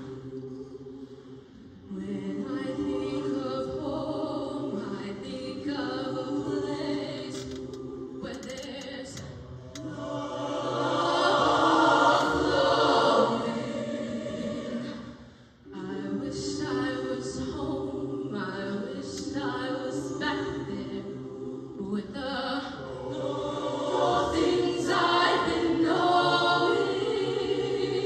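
Mixed high-school show choir singing sustained chords in harmony, building to its loudest about halfway through, dropping away briefly, then coming back in.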